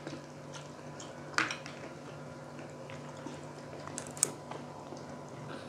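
Quiet eating at the table: soft chewing of fried pork cheek and small clicks of chopsticks and plates, with two sharper clicks about a second and a half in and about four seconds in, over a faint steady hum.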